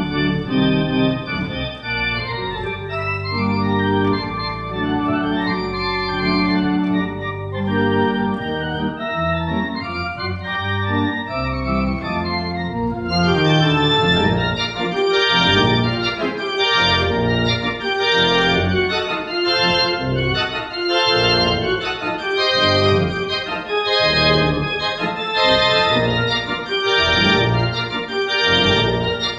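Church organ playing an organ arrangement of a ragtime piece, full chords over a moving bass. About halfway through, the bass changes to a steady pulse of short, detached notes.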